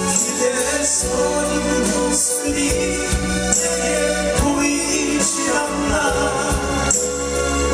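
Live band playing a soft folk-pop ballad: strummed acoustic guitars with electric guitar and bass, and male singing over a steady beat.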